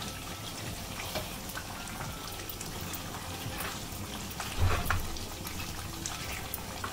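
Thick chicken curry gravy sizzling and simmering in a metal pot, nearly cooked, as a steady hiss. A stirring spoon makes a few light clicks against the pot, the loudest about four and a half seconds in.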